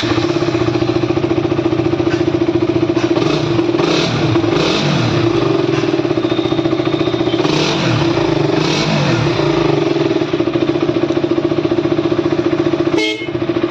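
KTM Duke 200's single-cylinder four-stroke engine running at idle, its revs swinging briefly twice. It runs steadily now that a broken fuel-pump relay wire has been rejoined. A sharp click comes near the end.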